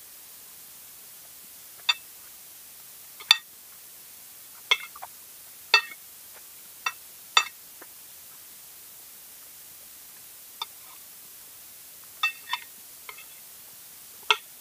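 Metal fork and spoon clinking against a ceramic plate while eating: about a dozen short, ringing clinks at irregular intervals.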